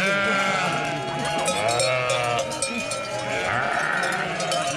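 A large flock of sheep bleating, with many overlapping calls about once a second. Under them, sheep bells clink and jingle as they are taken off the sheep's necks.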